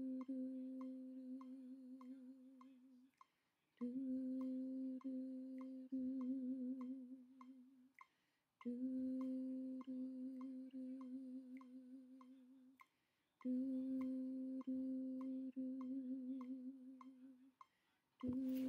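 A woman's alto voice holding long notes of the alto part of a choir song, four phrases of about four seconds each with a vibrato at the end of each note and short breaths between. A metronome clicks steadily about twice a second underneath.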